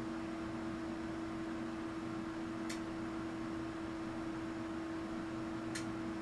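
Steady electrical hum from the AC test bench, one even tone over a hiss. A sharp click comes about every three seconds, as the applied test voltage steps from one level to the next.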